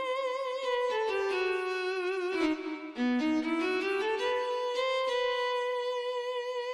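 Background score: a solo violin melody that steps down in pitch and climbs back, then settles on a long held note with vibrato.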